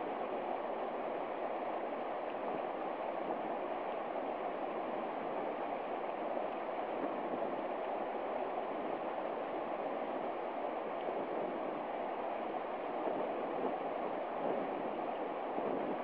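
Small mountain stream running over rocks and little cascades: a steady, unbroken rush of water.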